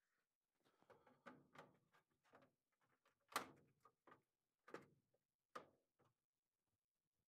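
Sheet-metal cabinet of an AprilAire 700 humidifier being handled while its evaporator pad is fitted: a string of light knocks and clatters, the sharpest about three and a half seconds in, with single knocks after it.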